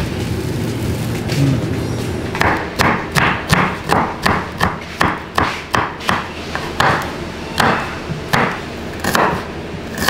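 A cleaver chopping garlic cloves and shallots on a wooden cutting board: a run of sharp knocks starting about two seconds in, about three a second, then spacing out in the second half.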